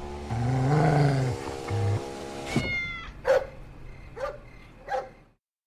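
A cat gives a long, low meow that rises and then falls, followed by a short second meow. After that comes a bright ringing tone and three soft short notes.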